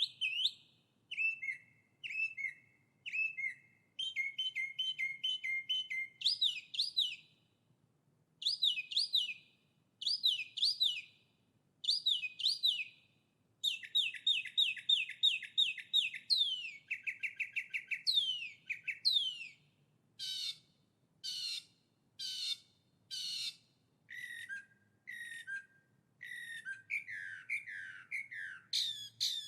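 Songbird singing in short, high-pitched phrases of rapid repeated chirps and trills, each phrase about a second long with brief pauses between.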